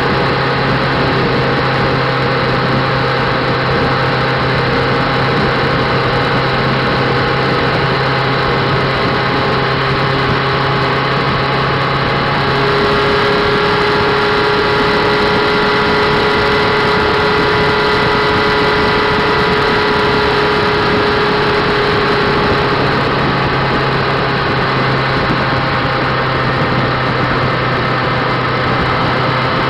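Motorcycle engine running steadily at cruising speed over a continuous rush of riding noise. About twelve seconds in, the engine note shifts to a higher, slightly louder steady tone for about ten seconds, then settles back.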